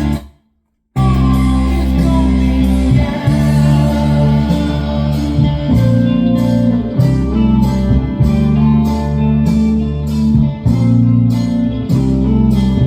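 A recorded song with guitar and singing. It cuts out just after the start and comes back about a second in, and a regular beat of about two strokes a second comes in near the middle.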